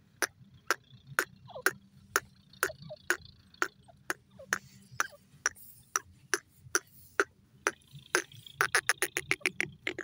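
Francolin giving a run of sharp clicking notes, about two a second, that speeds into a quick rattle near the end.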